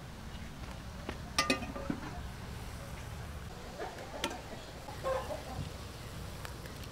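Metal clinks and knocks from an aluminium wok lid being lifted and a stainless steel colander being handled, the loudest pair of clinks a little over a second in and smaller ones later, over a steady low rumble.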